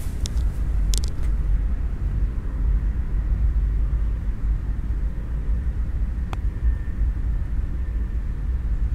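A steady low outdoor rumble, with one sharp click about six seconds in as a putter strikes a golf ball. A few lighter clicks come about a second in.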